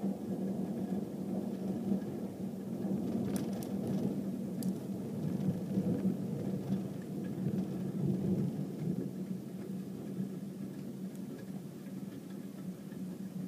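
Low rolling rumble of thunder from a lightning strike, swelling and easing slowly, over a steady low hum.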